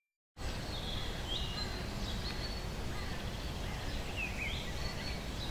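Outdoor ambience: a steady background hiss with small birds chirping now and then, short high chirps that glide up and down. It cuts in abruptly a moment in, after near silence.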